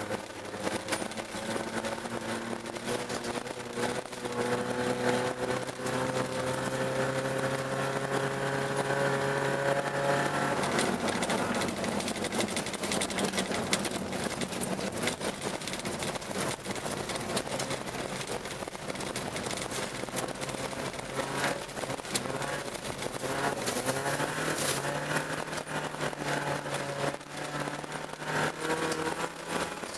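Car engine heard from inside the cabin, its pitch climbing slowly for about ten seconds under throttle, then dropping away. Steady tyre and road noise from the ice and snow runs throughout. The engine note returns, steady, near the end.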